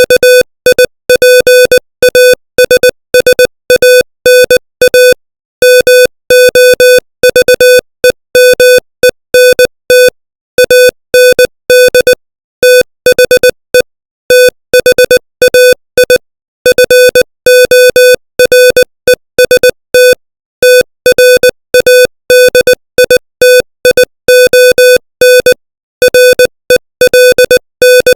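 Morse code sent as a single-pitch beeping tone at 20 words per minute. It is a fast run of short and long beeps with brief pauses between words, spelling out English text about samadhi.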